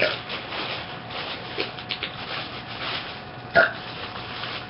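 Two short, hiccup-like throat sounds from a girl, one right at the start and a second about three and a half seconds in, over a faint steady hum.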